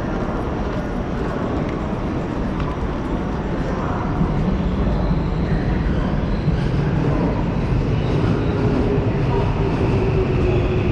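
Electric commuter train running along a station platform: a steady rumble of wheels and motors that grows a little louder after a few seconds, with a faint motor hum.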